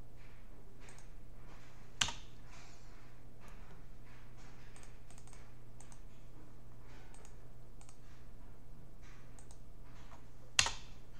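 Computer keyboard keystrokes and mouse clicks, light and irregular, with two louder sharp clicks: one about two seconds in and one near the end.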